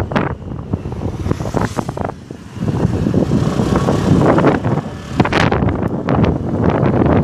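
Wind buffeting the phone's microphone on a moving two-wheeler, a loud gusty rush over the rumble of the ride. It eases off briefly about two seconds in.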